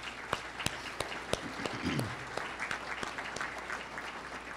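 Audience applauding, a dense patter of hand claps that begins to taper off near the end.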